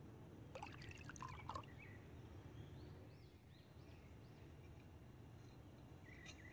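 Faint clinks and scrapes of a metal spoon and small dish against a ceramic bowl while spices and sauces are mixed, a short cluster early and a few more near the end, over a low steady hum.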